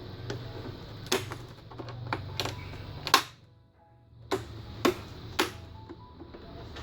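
Sharp plastic clicks, about nine of them spaced irregularly: the clips of an all-in-one PC's screen panel snapping into place as it is pressed home around the edges, the loudest a little after three seconds in.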